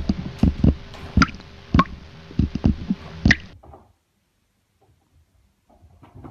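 Pet rabbit hopping about on a soft sofa: a quick series of about ten dull, squishy thuds in three seconds as its feet land on the cushions, over a steady hiss. The thuds and hiss stop abruptly about three and a half seconds in, leaving only a few faint sounds near the end.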